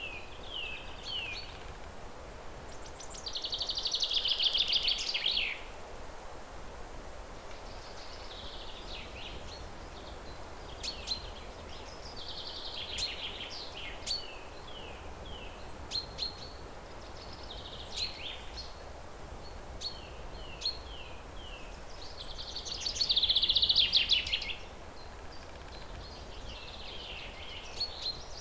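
Wild birds singing: repeated short chirps and quick downward-sliding notes, with a louder buzzy trill about three seconds in and again near the end. A steady low background hiss of outdoor ambience runs underneath.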